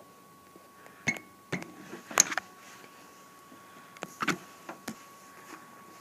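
Several sharp taps and knocks from a tablet being written on and handled; the loudest is about two seconds in. A faint steady thin tone runs beneath them.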